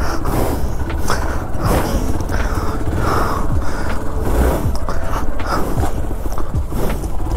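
Single-cylinder dual-sport motorcycle engine working over a rough, pot-holed off-road track, revving up and down unevenly as the rider picks a way through the ruts.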